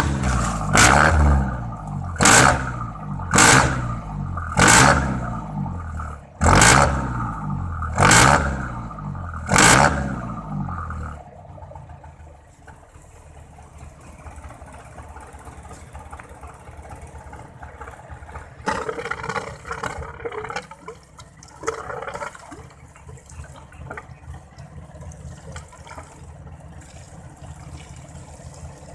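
Jeepney engine revved in about eight surges roughly a second and a half apart, each blowing a spray of water out of the stainless tailpipe to flush carbon from the muffler. About eleven seconds in it drops back to a low idle, and hose water keeps running through the pipe with some splashing.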